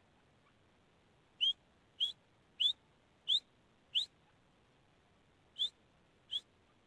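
Grey francolin (teetar) calling: seven short, sharp whistled notes, each sweeping upward. Five come in a quick even series, then after a brief pause two more follow.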